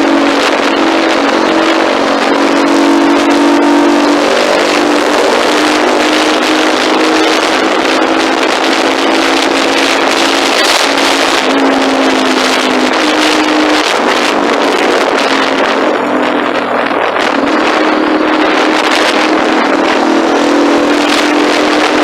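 Engine running loud and steady, a droning note that shifts slightly a few times and eases briefly about three-quarters of the way through.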